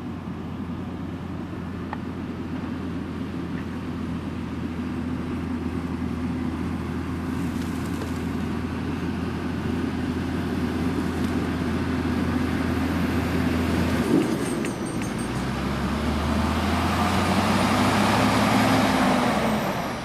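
Large farm tractor's engine running steadily as it drives closer, growing gradually louder, with a change in the engine note about two-thirds of the way through.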